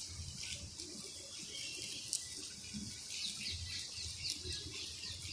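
Rain falling steadily as an even hiss. In the second half a run of short, high, falling chirps sounds over it.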